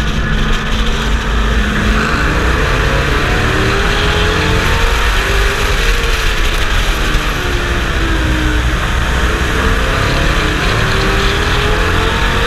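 Pro Truck race engine heard from a camera on the truck's own hood, running hard at racing speed, its revs climbing and dropping several times, over steady wind and road noise.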